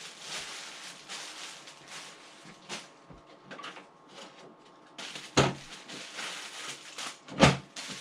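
Unboxing handling noises: rustling of packaging with two sharp knocks, about five seconds in and again near the end, the second the louder.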